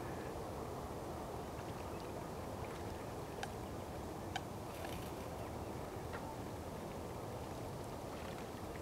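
Steady low outdoor background noise by a lake, with a few faint clicks around the middle.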